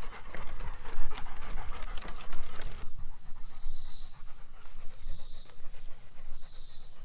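Labrador–Weimaraner cross dogs panting. For the first three seconds, many quick clicks of footsteps and paws on wooden boardwalk planks are heard with it.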